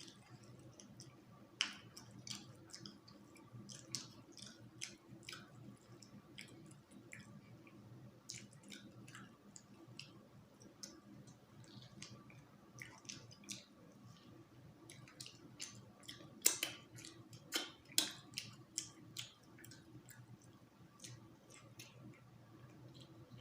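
Close-up chewing and lip-smacking while eating, a steady run of short wet clicks, with a few sharper, louder smacks about two-thirds of the way through.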